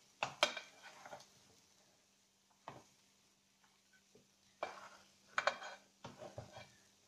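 Kitchen utensils and dishes clattering in short bursts as food is portioned out: a cluster of clinks at the start, a single one a little later, and a longer run near the end.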